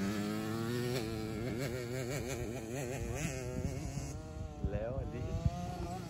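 Small engine of a child's mini motocross bike revving up and down in quick waves as it is ridden through a turn on dirt, its pitch rising and falling repeatedly.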